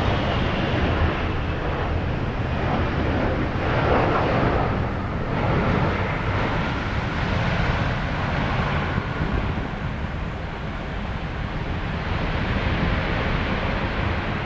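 General Electric GE90-115B jet engines of a Boeing 777-300ER running as it touches down and rolls out on the runway, with wind noise on the microphone. The roar swells about four seconds in, then eases slightly.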